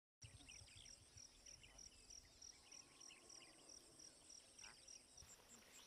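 Faint insects that cut in suddenly just after the start: a high chirp pulsing about three times a second over a steady, higher buzz, with a low rumble underneath.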